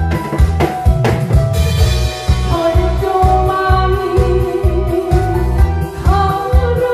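A fast disco-beat backing track with a melody line, with live drumming on Korean barrel drums and a cymbal played along with it; a cymbal crash about a second and a half in.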